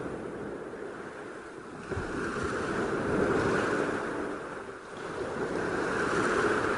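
Ocean surf breaking and foamy wave wash running up over the sand, swelling twice as the waves come in.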